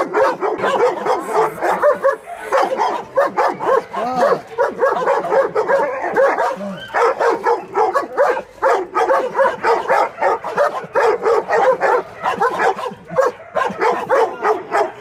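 Dogs barking and yelping at each other in rapid runs of short calls, several a second, as a pit bull and a German shepherd square off.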